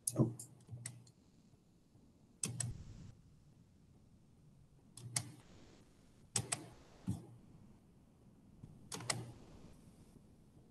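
Computer mouse clicks and keyboard taps: about eight short, sharp clicks scattered a second or more apart, some with a soft low thud, and faint room tone between them.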